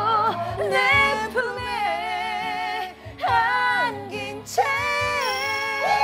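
A woman and a man singing a slow Korean ballad together, holding long notes, in three phrases with short breaks between them.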